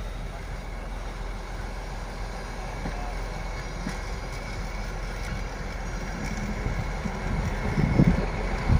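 Steady low rumble from a retro passenger train of old coaches on the track, with louder low thumps coming in near the end.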